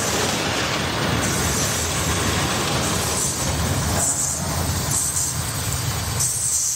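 Freight train of open coal wagons rolling over the rails: the last wagon goes by near the start, and the steady rumble of the wheels carries on as the train moves away.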